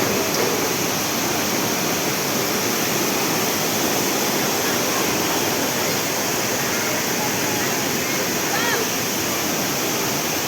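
Rushing water of a river and waterfall: a steady, loud, even roar.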